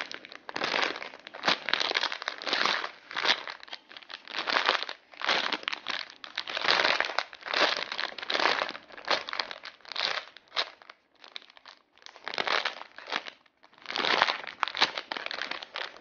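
Clear plastic packaging bag crinkling in repeated bursts, about one or two a second, as a large foam squishy toy is squeezed and handled inside it.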